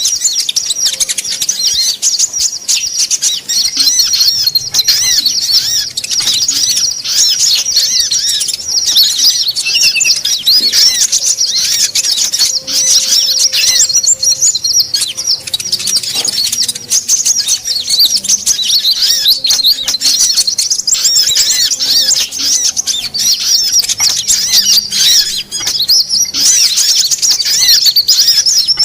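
Dense, unbroken chatter of many small songbirds calling over one another: rapid, high-pitched chirps and trills. It is a mixed 'noisy birds' lure recording (suara pikat) meant to draw wild birds in.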